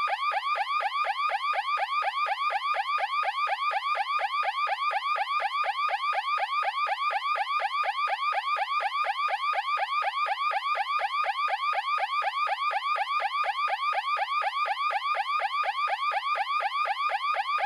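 Electronic anti-theft alarm siren sounding continuously: a fast, repeating rising electronic tone, about four sweeps a second, at a steady level.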